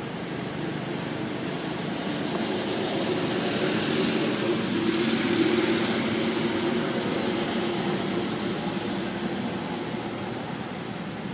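A motor vehicle passing: engine hum and road noise swell gradually to a peak about halfway through, then fade away.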